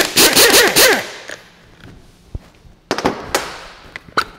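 Pneumatic impact wrench hammering a 16 mm nut off the top of a shock absorber. A rapid, loud burst of impacts stops about a second in. A few short knocks follow about three seconds in.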